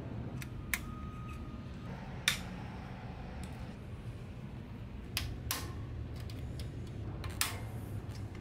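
Scattered sharp metallic clicks and clinks of hand tools on bicycle parts (screwdriver on the crank and chainring, pedal on the crank arm, tyre levers on the wheel rim), about seven in all with the loudest a few seconds in, over a steady low hum.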